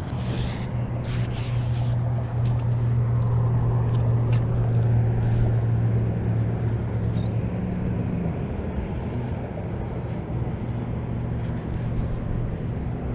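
A boat's engine running steadily as a low hum with overtones, swelling a little around four to six seconds in and easing off toward the end.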